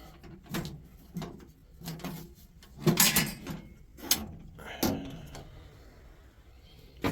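Sheet-metal server tower case being opened by hand after unlocking: a series of metal clunks, clicks and scrapes from the latch and panel, the loudest about three seconds in.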